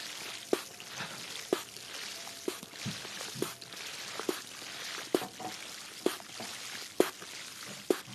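ASMR water sounds: a steady trickle of water with a short sharp click about once a second, nine in all.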